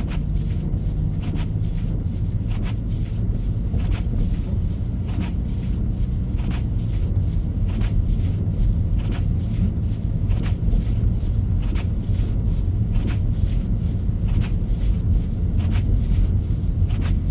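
Car driving on a snow-covered road: a steady low rumble of engine and tyres, with scattered light clicks.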